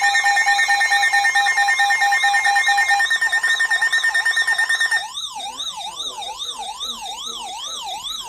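Layered electronic siren and alarm tones: a pulsing beep and a steady high tone over a siren wailing up and down nearly twice a second. About five seconds in, the beep and steady tone stop and the wailing siren carries on alone, a little quieter.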